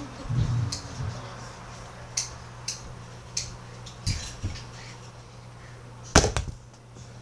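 Scattered light clicks and taps with one sharp knock about six seconds in, over a steady low hum.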